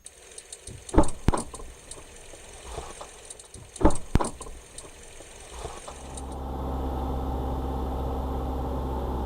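Several sharp knocks and irregular clicks, then a car engine running steadily from about six seconds in.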